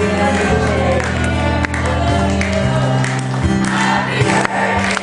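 Live band music with held bass notes that change every second or so, and voices singing over it.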